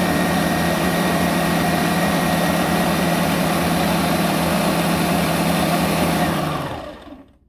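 Countertop blender running at a steady high speed, puréeing fresh corn kernels into a thick batter, then switched off and spinning down near the end.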